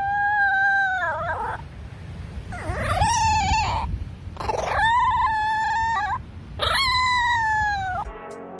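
A small dog howling: four long howls, each held on one pitch and falling off at the end, with short gaps between them.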